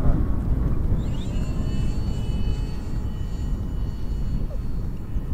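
Durafly Goblin Racer RC plane's electric motor and propeller whining high overhead, the pitch sweeping up about a second in and then holding steady. Under it is a low rumble of wind on the microphone.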